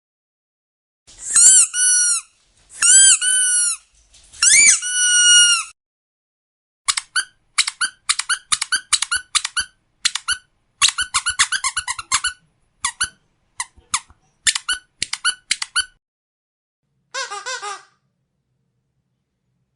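Squeaky rubber dog toy squeaking: three long squeals in a row, then a quick run of many short squeaks, and after a pause one brief buzzy squeak.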